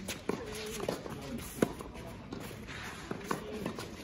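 A few sharp knocks of a tennis ball, one louder about a second and a half in, with footsteps on the court and faint voices in the background.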